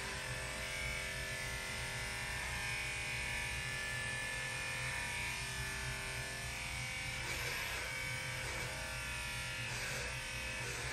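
Electric dog grooming clipper running with a steady buzz as it trims a Shih Tzu's coat, with a few brief changes in tone in the second half.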